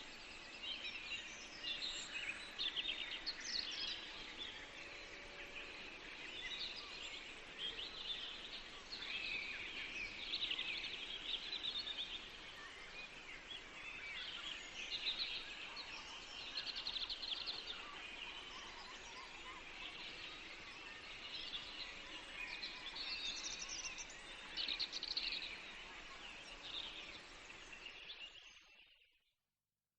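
Several small birds chirping and singing over faint steady background noise, fading out to silence near the end.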